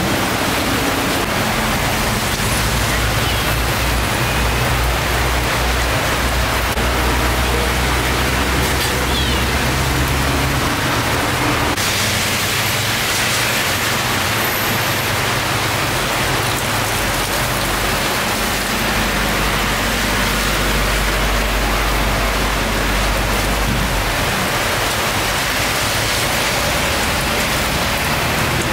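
A loud, steady hiss with a low motor hum beneath it. The hum shifts about ten seconds in and its deepest part drops away a few seconds before the end.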